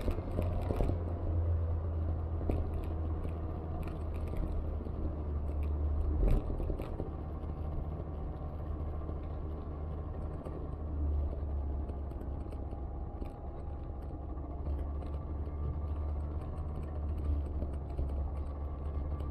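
Steady low rumble of wind and road noise from riding a bicycle along a city cycle path, with faint ticks and rattles throughout and a louder bump about six seconds in.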